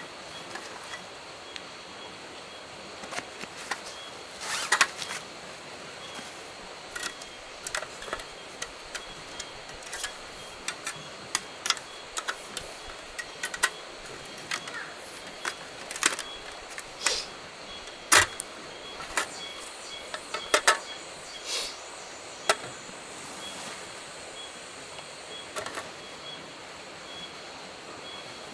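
Camp gear being unpacked by hand: irregular rustles of bags and fabric with sharp clicks and clacks as a small folding aluminium table is taken out and set up, over a steady background hiss.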